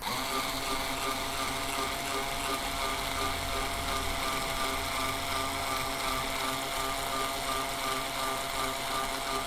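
Cordless drill driver running at a steady speed with a steady whine, spinning a three-way cutter in a Hornady case trimmer as it trims, chamfers and deburrs the neck of a brass case.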